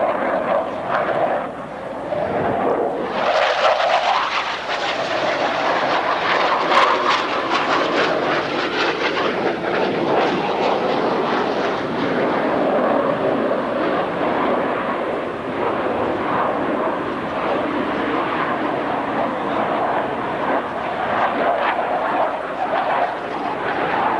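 Jet noise from Blue Angels F/A-18 Hornets in flight, a continuous loud rushing roar that swells sharply about three seconds in as the jets come closer, then eases to a steadier roar in the second half.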